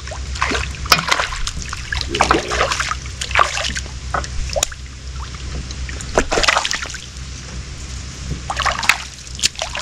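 A hooked fish splashing at the water's surface in irregular bursts as it is reeled in toward the boat.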